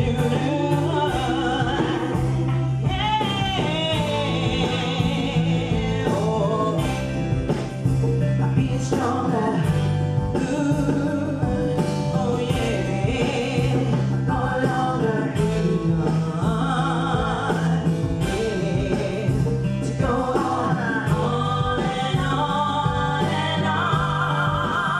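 A woman singing a soulful pop song into a microphone over backing music with a steady bass line, her held notes wavering with vibrato and breaking into quick runs.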